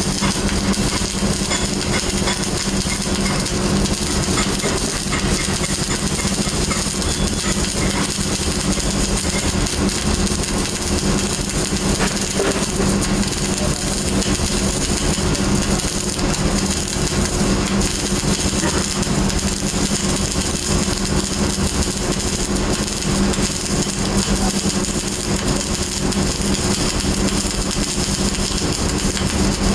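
Electric arc welding running continuously: a steady sizzling crackle from the arc with a steady low hum underneath.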